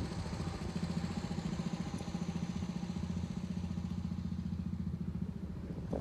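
An engine idling steadily, a low, even running hum with a fast regular pulse.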